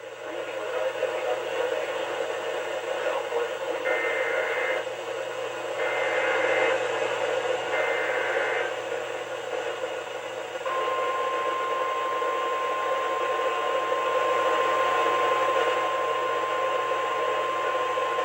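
NOAA Weather Radio emergency alert heard through a weather radio's speaker over steady static hiss. Three short bursts of screechy SAME digital header data come about two seconds apart, and about ten seconds in the long, steady warning alarm tone begins, signalling that a warning message is about to be read.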